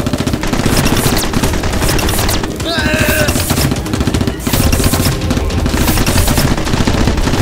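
Rapid automatic gunfire sound effects: sustained bursts of many shots in quick succession, with a brief lull about four and a half seconds in.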